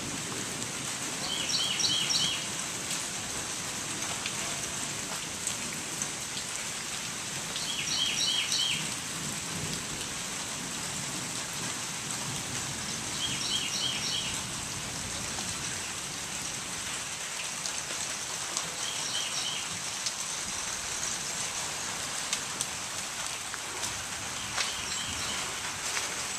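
Steady rain falling, with a bird repeating a short phrase of a few quick high notes every five or six seconds.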